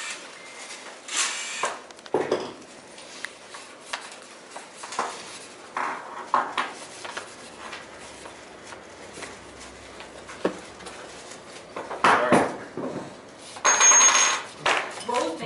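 Scattered clinks and knocks of small hard objects, likely metal, being handled, with a louder run of rattling clinks and a brief high ping near the end.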